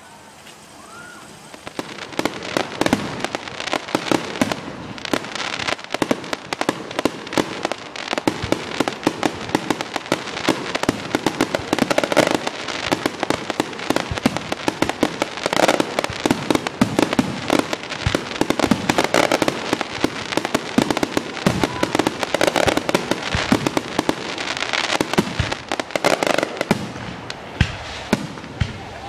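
Aerial fireworks going off in a rapid, continuous barrage of bangs and crackling, many a second, starting about two seconds in after a brief lull.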